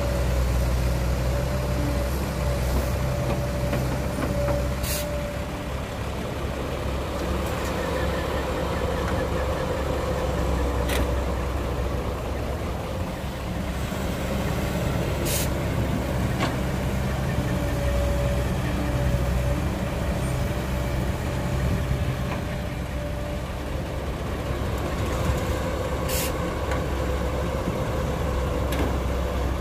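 Caterpillar hydraulic excavator's diesel engine running under load as it digs soil and swings to load a dump truck, with a whine that comes and goes over the steady engine hum. Four sharp knocks come spread through it.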